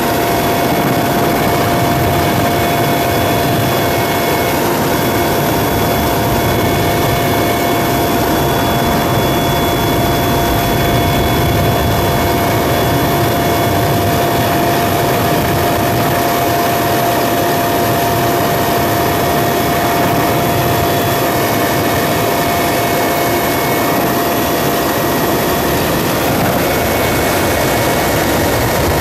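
Helicopter engine and rotor noise, running steadily with a constant high whine.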